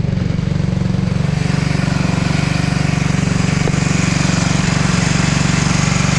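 Racing kart's small engine idling steadily, with an even, rapid pulsing beat.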